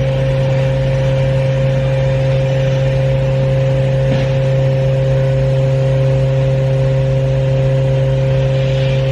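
Haas VF-4 CNC vertical machining center running with a steady mechanical hum, with a faint click about four seconds in.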